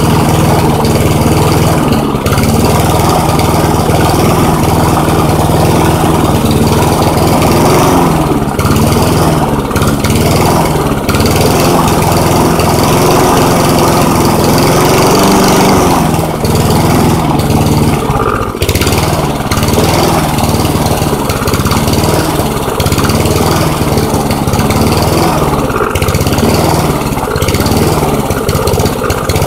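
Push lawn mower's Honda GCV engine running unevenly, its speed rising and falling, after a cold start from sitting unused for months.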